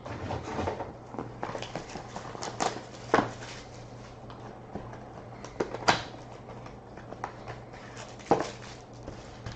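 Trading cards and their packaging being handled on a table: scattered light clicks and taps, with a few sharper knocks about three, six and eight seconds in.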